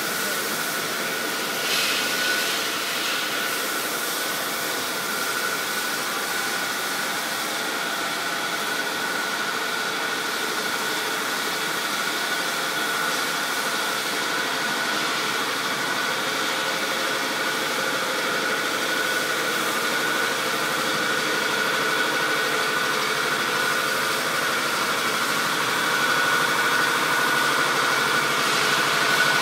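Steady hum of bottling-plant machinery running, with a constant high whine over it, getting slightly louder near the end.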